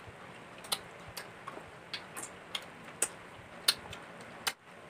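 Wet mouth smacks and sucking sounds of people eating ripe mango slices by hand: short, sharp smacks about two a second, irregularly spaced.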